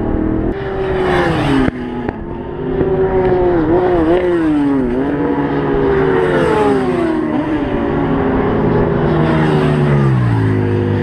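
Racing sportbike engines at high revs on the track, several notes overlapping, their pitch rising and falling through gear changes; near the end one bike's note drops steeply as it passes close by. Wind buffets the microphone about a second in.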